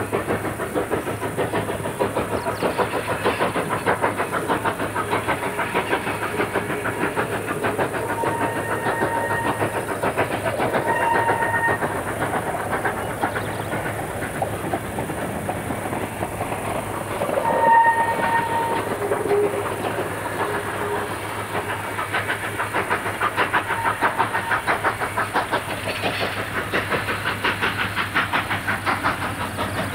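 Narrow-gauge K-36 Mikado steam locomotive 488 working hard up a grade, its exhaust beating in a steady rapid chuff. Its whistle sounds briefly about 8 and 11 seconds in, and again louder about 18 seconds in.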